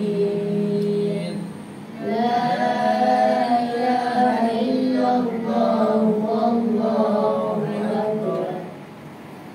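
A group of young voices chanting Quranic recitation together, in long, drawn-out melodic phrases. A short phrase is followed by a brief pause and then a longer phrase that fades near the end.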